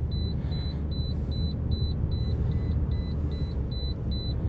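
Car engine and road noise heard from inside the cabin while driving, a steady low rumble. Over it, a short high-pitched electronic beep repeats about three times a second, like a dashboard warning chime.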